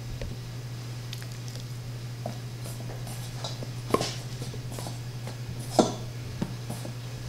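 Hands coating lobster pieces in flour and breading in stainless-steel bowls: soft handling sounds with a few light clinks against the metal bowls, the sharpest about four and six seconds in, over a steady low hum.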